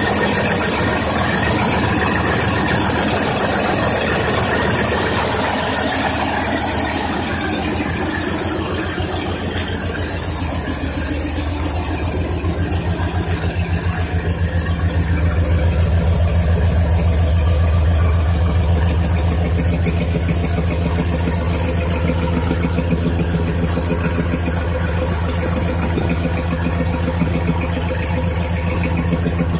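1990 Ford F-150's engine idling steadily, its low rumble growing stronger about halfway through. The running sound comes out oddly echoey, thrown back by an open garage in front of the truck.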